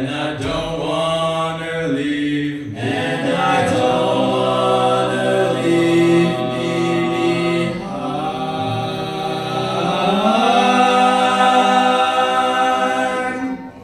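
Male vocal quartet singing a cappella through microphones in close harmony, holding long drawn-out chords. About ten seconds in the voices slide up into a final chord, held until it stops at the song's end.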